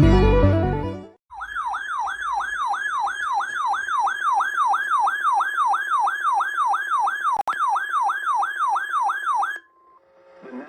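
Intro music ends in the first second, then an electronic emergency alert tone sweeps rapidly up and down like a yelp siren, about three sweeps a second, for about eight seconds. A short click breaks it near the end, and it stops with a brief steady beep. This is the attention signal of a broadcast severe weather alert.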